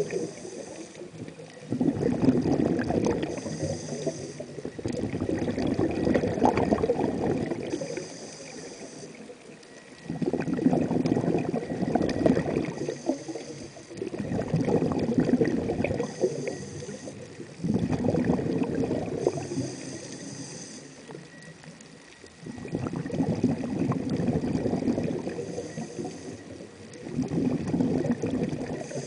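A swimmer's breathing and bubbling heard underwater, in repeated gushes of two to three seconds about every four to five seconds, with short hissing spells between them.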